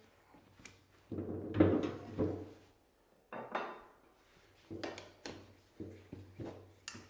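Irregular clanks and knocks of tire-changing tools and the wheel rim being worked on a tire barrel during a motocross tire change. The loudest cluster comes about one and a half seconds in, with smaller knocks spread through the rest.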